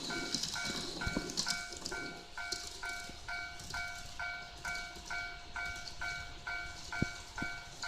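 Tomix TCS Automatic Crossing II N-gauge model level crossing sounding its electronic warning bell, a ding repeating about twice a second. In the first two seconds a model train's running noise on the track is heard, then fades away.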